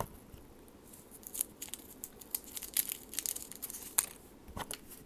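A cough drop's plastic twist wrapper crinkling as it is unwrapped by hand, in a run of irregular sharp crackles.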